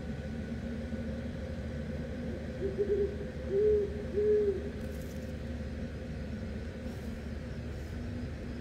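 An owl hooting three times, short hoots that rise and fall in pitch about two-thirds of a second apart, over a steady low hum.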